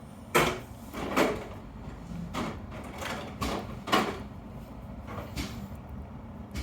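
A series of sharp, irregular knocks and clicks, about seven in six seconds, the loudest about a second and four seconds in.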